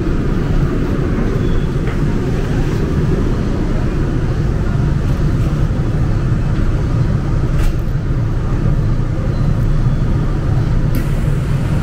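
Steady low rumble of a Seoul subway train in motion, with a couple of brief clicks in the second half.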